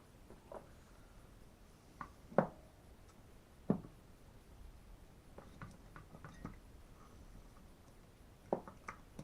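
Scattered light clicks and knocks of hand tools and small parts being handled on a chainsaw's clutch side. Two sharper knocks stand out about two and a half and nearly four seconds in, with a run of softer clicks after and two more near the end.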